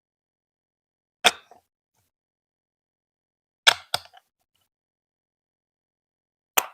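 Lego Duplo bricks being clicked into place: four sharp plastic clicks, the third and fourth close together, with silence between.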